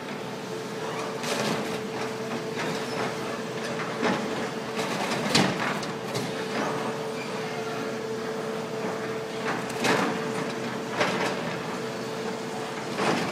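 Demolition excavators working: a steady engine drone with a level hum, broken by irregular sharp clanks and crashes of rubble and steel, the loudest about five seconds in.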